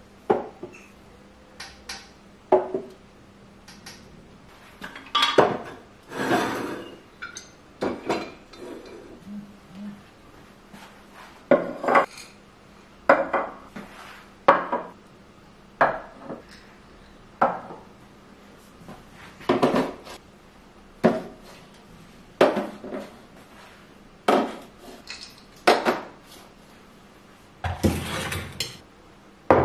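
Glass swing-top bottles and clip-top glass jars set down and shifted on wooden shelves: a string of separate clinks and knocks, one every second or two. Near the end comes a longer scraping clatter as a stainless kettle is slid on its base across the wooden counter.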